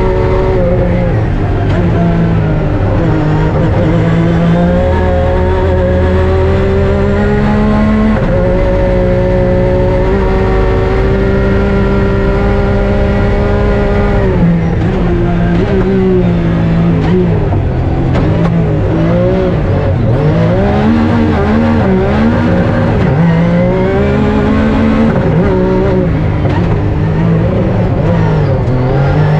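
Rally-raid car's engine running hard under full throttle. The pitch climbs slowly with gear changes about 8 and 14 seconds in, then rises and falls quickly through the second half as the throttle is lifted and reapplied.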